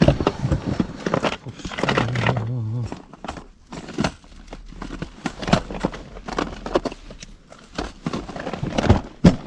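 Hands rummaging through a tackle box: plastic lure cases and lids clicking and clattering against each other, with crinkling and rustling, in many short irregular knocks.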